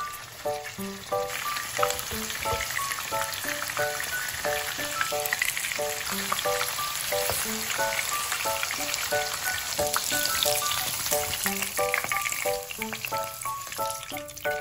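Food sizzling as it fries in hot oil, a steady crackling hiss, with a light plucked background tune over it.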